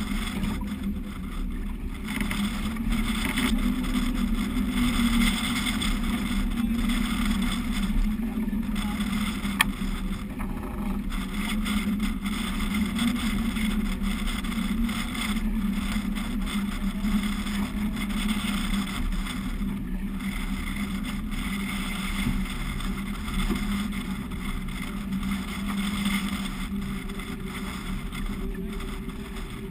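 Steady rush of wind and water around a sailing yacht's hull as it sails heeled through choppy water in a stiff breeze, with one sharp click about ten seconds in.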